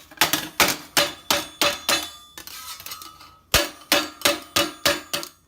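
Hammer blows on a steel armour plate bent over a pipe to start shaping a gorget plate. The blows come in two quick runs of about three a second, with a pause of about a second between them, and each blow rings.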